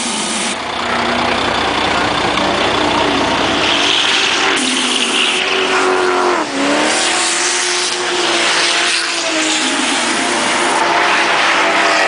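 Engines revving up and down over a steady noisy rush. The pitch dips and climbs again about six and a half seconds in.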